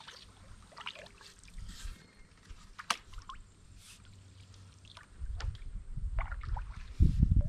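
Canoe on a stream: faint water sounds and a few sharp knocks and ticks of paddling and gear against the hull. A low rumble builds from about five seconds in.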